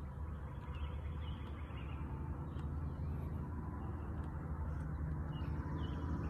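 Outdoor background: a steady low rumble, with birds chirping now and then.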